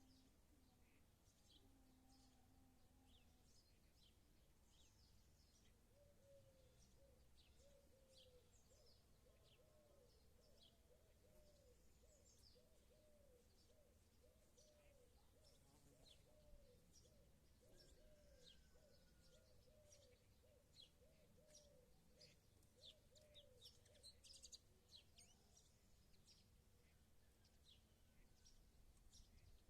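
Faint birdsong: many short, high chirps from small birds scattered throughout. Between about 6 and 22 seconds a low hooting call repeats roughly twice a second.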